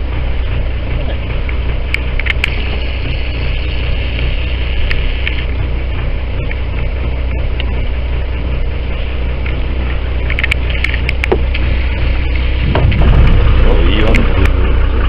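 Charter fishing boat's engine idling steadily under wind and water noise, with a few sharp clicks and knocks.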